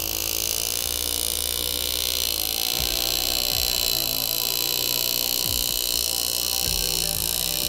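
Engraving handpiece buzzing steadily at a high pitch as the graver cuts outline lines into a stainless steel knife handle.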